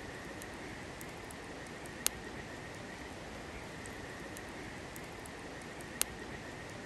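Steady hiss of outdoor background noise with a faint high steady tone in it, broken by two sharp clicks about four seconds apart.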